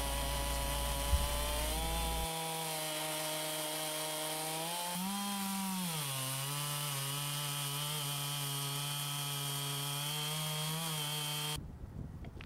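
Chainsaw running steadily under load in a chainsaw mill, ripping lengthwise through a white oak log to cut a slab. The engine pitch rises briefly about five seconds in, settles back, and the saw stops abruptly near the end, leaving faint rustling.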